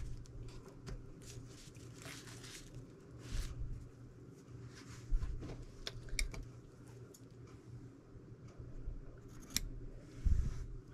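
Scissors snipping fabric in short, scattered cuts, with fabric handling and a few soft knocks on the work surface.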